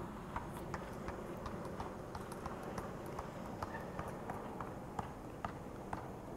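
Sharp clicks in an even rhythm, about three a second, over a steady low background hiss; a couple of the clicks about five seconds in are the loudest.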